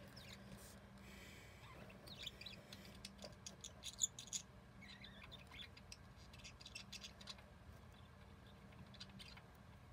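A fine-tipped pen scratching faintly on paper in short, irregular drawing strokes, with a sharper tick about four seconds in. A faint steady low hum runs underneath.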